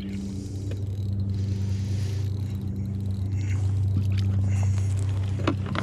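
Steady low hum of a kayak's electric motor, with a few short sharp clicks near the end.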